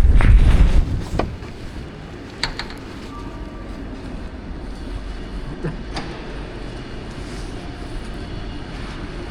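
A vehicle passes close by, a loud low rumble in the first second that then falls away to a steady street hum with a few scattered clicks and knocks.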